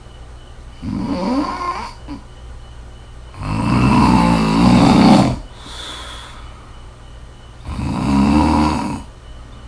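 A woman snoring in her sleep: three snores about three and a half seconds apart, the middle one the longest and loudest.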